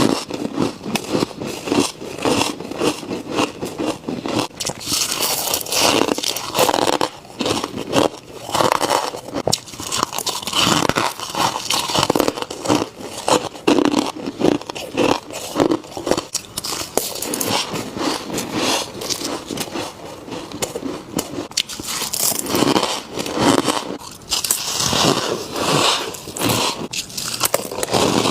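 Freezer frost being bitten and chewed close to the microphone: a dense, unbroken run of crunching and crackling, with scraping of the frost in between.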